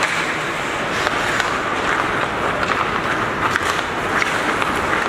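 Ice hockey in play: skate blades scraping and carving on the ice, with scattered sharp clicks of sticks and puck.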